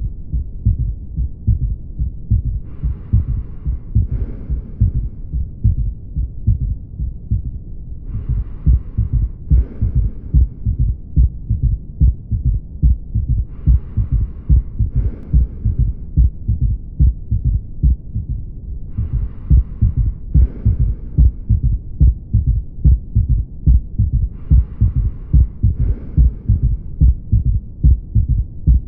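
A patient's heartbeat heard through a stethoscope: a steady, even run of low thuds. Soft breath sounds rise over it in an in-and-out pair about every five and a half seconds as the patient breathes normally.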